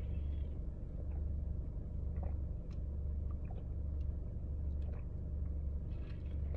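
A person drinking from a plastic cup, with a few faint swallows and small clicks over a steady low rumble.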